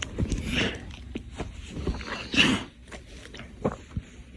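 A French bulldog grunting and snuffling a few times, short noisy snorts with the loudest about two and a half seconds in, amid small rustles and clicks.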